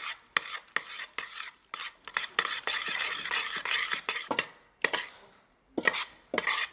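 Hands tossing fusilli coated in pesto in a stainless steel pot: wet mixing noise broken by short sharp clicks, with a brief lull about four and a half seconds in.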